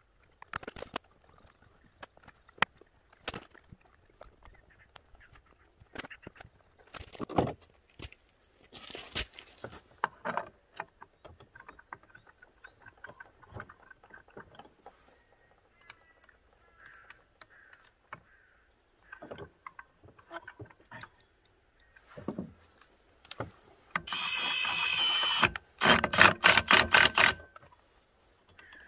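Metal clicks and knocks from scooter variator parts and drive belt being handled and fitted by hand. Near the end comes a louder steady noise lasting about a second and a half, then a quick run of sharp clicks.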